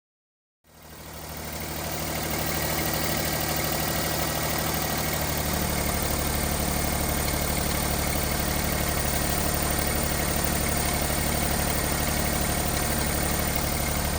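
Kei truck engine idling steadily, fading in over the first couple of seconds. It is the engine in which the owner found a mysterious abnormal noise during an oil change and inspection.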